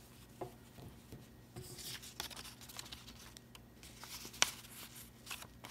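Faint rustling and soft handling sounds of a crocheted cotton dishcloth being folded, with a sharp click a little over four seconds in.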